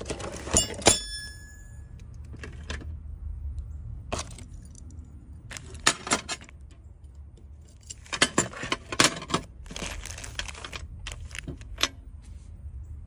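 Metal parts of a Cat-Rap catalytic converter anti-theft kit handled on a glass tabletop: scattered clinks and rattles of the steel bolts, bar and braided cable, with one clink that rings on briefly about a second in.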